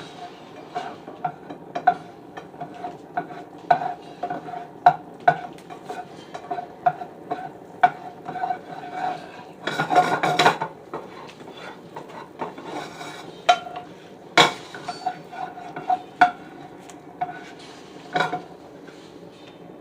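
Metal utensil clinking and scraping against a frying pan: dozens of irregular strikes, each leaving a short ringing note, with a longer scrape about ten seconds in and one loud knock midway through the second half.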